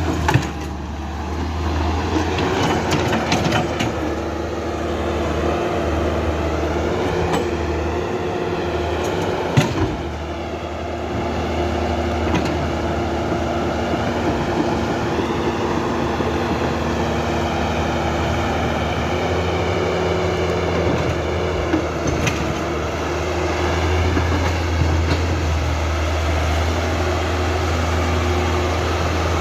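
Construction machinery running steadily with a low, even drone, broken by a few sharp knocks: once just after the start, once about a third of the way in, and once about three quarters of the way through.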